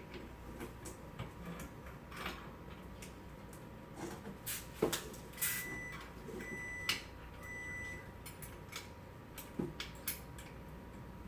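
Scattered metallic clicks and knocks of a wrench and bicycle pedal parts being handled while a pedal is threaded into the crank. There are three short electronic beeps about halfway through.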